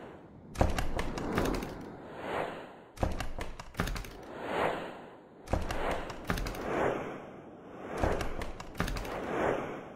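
Channel-ident sound design: four clusters of sharp percussive clicks and hits about two and a half seconds apart, each followed by a swelling whoosh that rises and fades.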